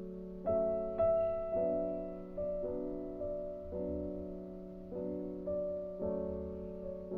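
Slow, gentle piano music: soft chords struck every second or so, each note fading away slowly.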